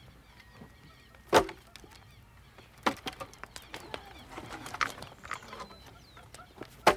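Split firewood logs knocking against each other as they are handled and stacked by hand. There are a few sharp wooden clunks, the loudest about a second and a half in, another near three seconds and one at the very end, with lighter knocks in between.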